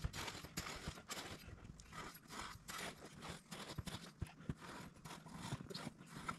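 A metal shovel scraping and spreading sand along the bottom of a dirt trench, mixed with crunching footsteps: a run of short scrapes a few per second that grow fainter as the digger moves away down the trench.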